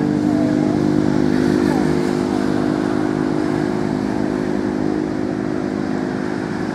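A motor engine running steadily at an even pitch.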